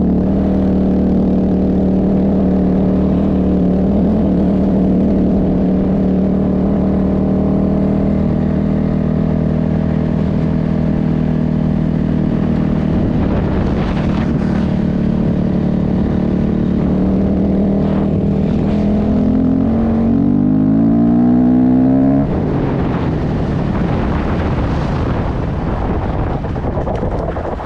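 An engine running at a steady pitch. About twenty seconds in it rises in pitch as if revving or speeding up, then drops to a rougher, noisier sound.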